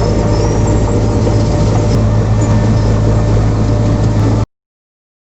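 Heavy diesel engine of a road construction machine running steadily with a deep, pulsing hum, cutting off abruptly about four and a half seconds in.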